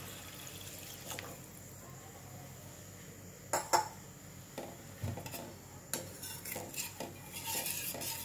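Stainless steel ladle against a steel kadai: two sharp metal clinks about three and a half seconds in, a dull knock, then a run of small clinks and scrapes as the ladle stirs the thin, watery gravy.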